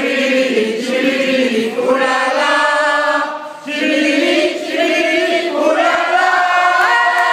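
A group of men singing together unaccompanied, in chorus. There is a short break about halfway through, and near the end they hold a long chord.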